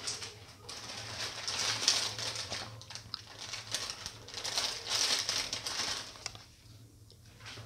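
Water with spices in a steel pan heating towards the boil: a hissing with many small crackles and pops as bubbles form, swelling twice and easing off near the end.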